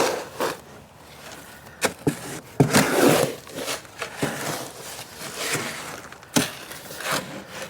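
Wet concrete being mixed by hand, a tool scraping and turning through the heavy mix in uneven strokes, with a few sharp knocks along the way.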